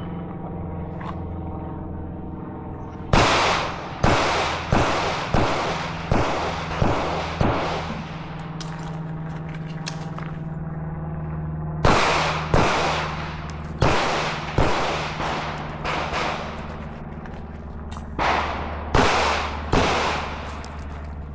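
Strings of shots from a pistol-calibre firearm fired in a timed course of fire, one shot about every two-thirds of a second, with pauses of a few seconds between strings and an echo after each shot. A steady low hum runs underneath.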